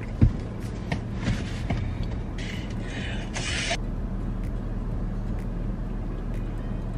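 Steady low hum of a car idling, heard inside the cabin, with a few knocks and clicks in the first two seconds, the loudest just after the start, and a brief hiss around the middle.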